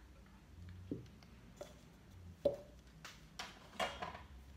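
A few light, separate knocks and taps of kitchen utensils being handled, the sharpest about halfway through, as a plastic cup is set down on a silicone baking mat.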